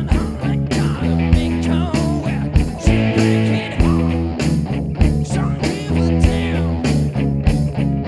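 Rock music with a steady beat, the recorded soundtrack to a stage act.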